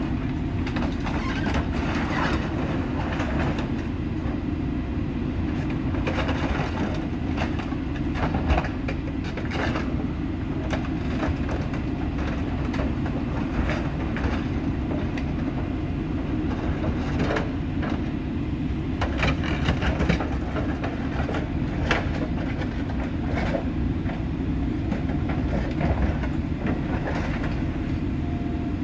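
Heavy scrap-yard machines, a material handler and an excavator, working a pile of scrap metal: a steady diesel engine rumble with frequent irregular clanks and crunches of metal.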